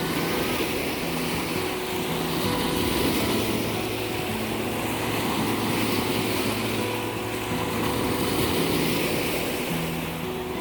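Lake Ontario waves washing onto the beach, the wash swelling and easing every few seconds, with a few steady low tones held underneath.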